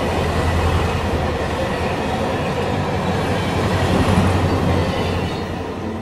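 A train running along its track: a steady rumbling hum with rail noise, easing off slightly near the end.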